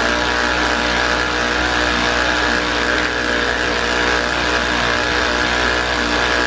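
Small battery motor of an Edu Science Slime-O-Nator toy slime maker running steadily as it stirs the cornstarch mix, a constant hum.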